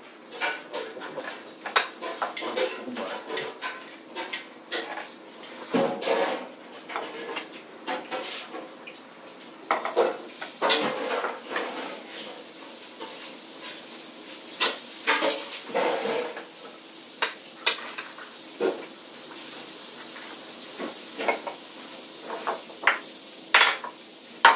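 Forks and spoons clinking and scraping against plates and bowls as several people eat spaghetti, in short irregular knocks.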